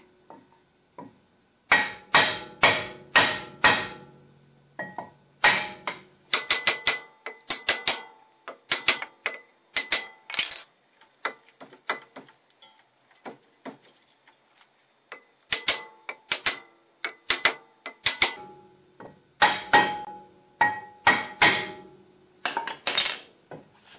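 Hammer blows on a block of wood held against the edge of a stuck brake rotor, knocking the rotor loose from the hub. Many sharp strikes come in irregular bursts, each with a short metallic ring, with a lull of a few seconds midway.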